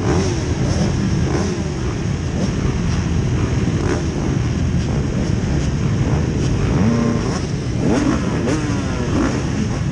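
A row of motocross dirt bikes running at the starting gate, a dense engine din with several bikes revving up and dropping back, mostly in the second half.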